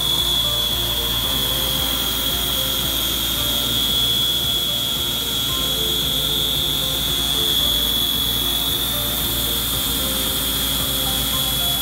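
Tormach PCNC 770 CNC mill side-milling metal bar stock with a 1/4-inch three-flute carbide end mill at 2500 RPM: a steady cutting noise with a constant high-pitched whine over it, unchanging as the cut feeds along.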